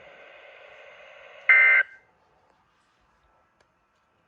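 Weather radio hiss, then about a second and a half in a short, harsh two-tone SAME digital data burst from a NOAA Weather Radio broadcast, the end-of-message code that closes the tornado warning. The audio then drops to dead silence until a second data burst starts at the very end.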